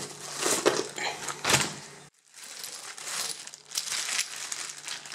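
Metal padlocks and lock cylinders clinking against each other as they are handled, with rustling of cardboard and plastic bags. The sound breaks off for an instant about two seconds in.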